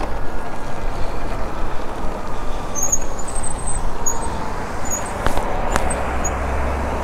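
Wind on the microphone and tyre noise from a Talaria Sting electric dirt bike rolling along, with a faint electric motor whine that falls in pitch as the bike slows off the throttle under regenerative braking. Two sharp clicks near the end.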